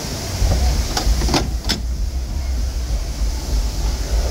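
Footsteps knocking on wooden boardwalk planks, three sharp knocks between about one and two seconds in, over a steady low rumble.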